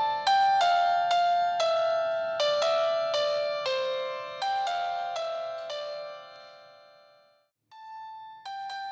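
Background music: a keyboard melody of single struck, decaying notes, piano-like in tone. It fades out about seven seconds in, drops to a brief silence, and then starts again.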